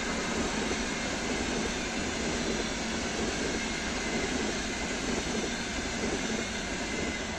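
Red-and-white double-decker passenger coaches rolling past on the rails: a steady rushing rumble of wheels on track at speed.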